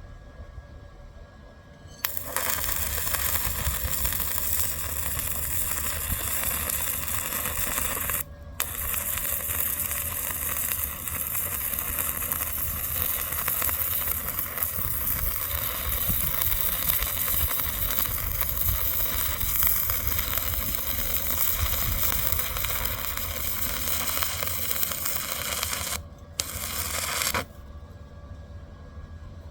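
Stick welding arc crackling and hissing steadily as a bead is run. It starts about two seconds in, breaks off briefly about a third of the way through, and stops near the end before one short last burst.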